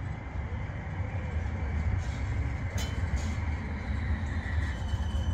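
CAF Urbos 3 tram approaching along street-level track: a steady low rumble that grows slightly louder as it nears, with a faint high steady whine joining about four seconds in.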